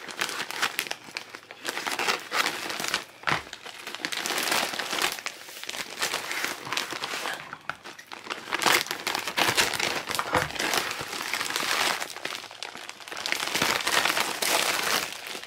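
Plastic mailer bag crinkling and rustling as it is cut open with scissors and handled, in irregular crackly bursts. Near the end the bubble wrap inside rustles as the parcel is pulled out.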